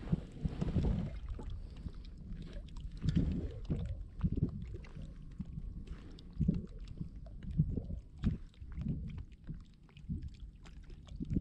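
Water sloshing and knocking against a kayak hull in irregular low thumps, with faint scattered clicks.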